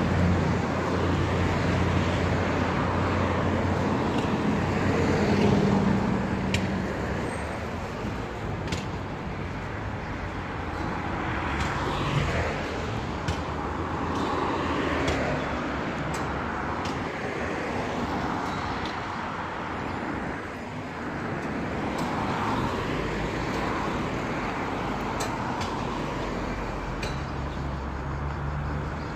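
City street traffic: cars passing one after another, their noise swelling and fading every few seconds over a steady traffic hum. A heavier engine hum stands out for the first few seconds, then eases.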